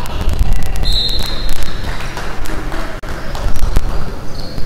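Basketball being dribbled on a hardwood gym floor during play, a series of sharp knocks and thuds, with a brief high squeak about a second in.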